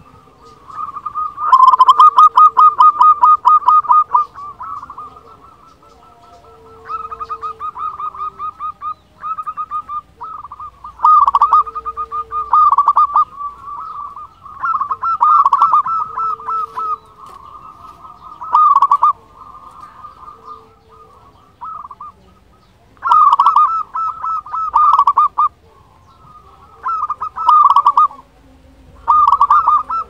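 Zebra dove (perkutut) cooing: repeated phrases of fast staccato notes, each one to two and a half seconds long, with short pauses between them.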